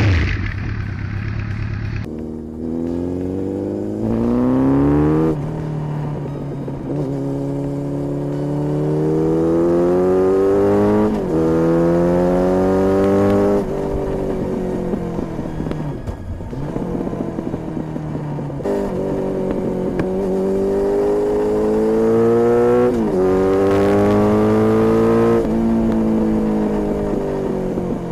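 Honda CB1300 inline-four engine accelerating hard through the gears. The pitch climbs and drops sharply at each upshift, over several pulls.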